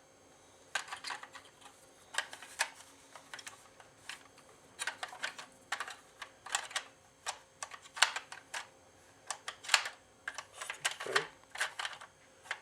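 A screwdriver and small screw working into the plastic shell of a Nerf Rival Apollo blaster during reassembly: a long run of irregular small clicks and taps, some in quick clusters.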